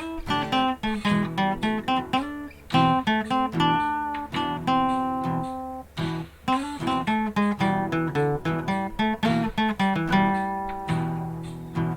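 Acoustic guitar playing a blues tune, a steady run of strummed chords mixed with picked single notes and short runs, without singing.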